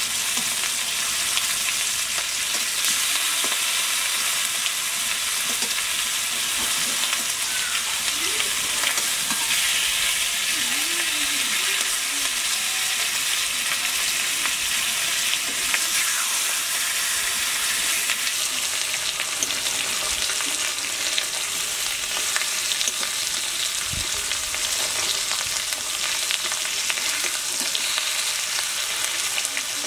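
Masala-coated mrigal fish steaks sizzling steadily in hot oil in a metal kadai, frying slowly on a low flame, with a metal spatula scraping the pan as the pieces are turned.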